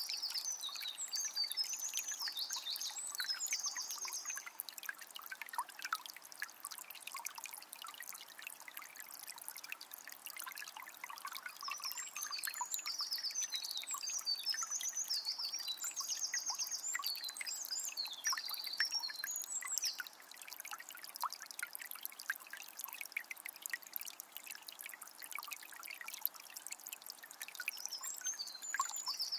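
Shallow forest river trickling and babbling over stones. A songbird sings in bursts of varied high, quick phrases over it: at the start, through the middle, and again near the end.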